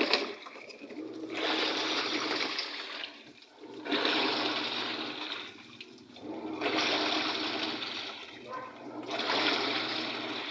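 Panasonic 7 kg top-load automatic washing machine agitating a load: water churning in four swells with short pauses between them, a low motor hum under each, as the pulsator turns one way and then the other. The machine is washing normally on its replaced control board.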